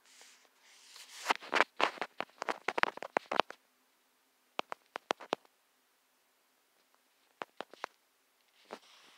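Typing on a smartphone's on-screen keyboard: runs of quick, sharp taps. There is a long run in the first few seconds, then short bursts of three or four taps.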